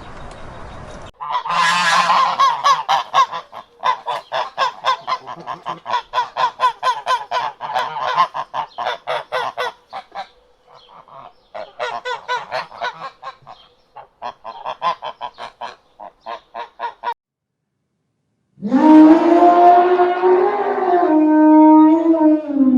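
Animal calls: a long run of rapid honking calls, several a second with short breaks, then after a brief silence one long, lower-pitched call near the end.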